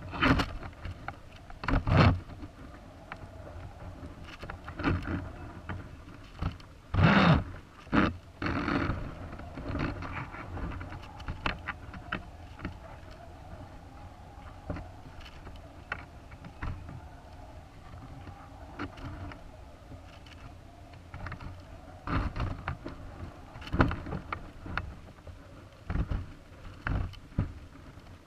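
Irregular knocks, clicks and rustles from a high-altitude balloon's camera payload as it swings and twists, over a low steady hiss; the loudest bumps come near the start, a third of the way in, and in a cluster near the end.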